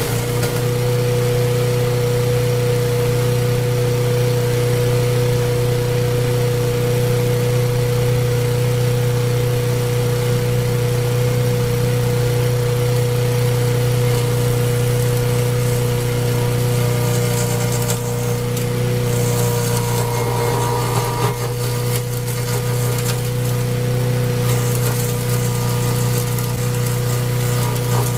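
Engine-driven homemade wood chipper running steadily with a constant low drone. The sound changes briefly, with a rougher, noisier spell, about twenty seconds in.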